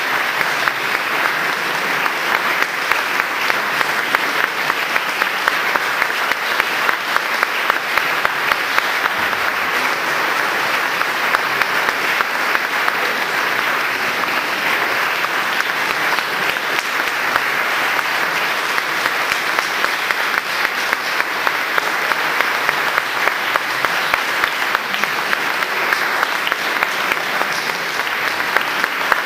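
Audience applauding steadily: dense, even clapping from a full hall.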